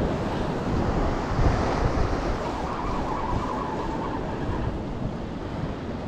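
Wind buffeting the microphone over the steady wash of sea surf against a rocky shore.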